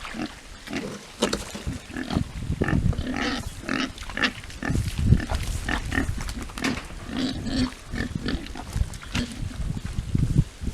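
Landrace-cross pigs grunting, many short irregular grunts one after another.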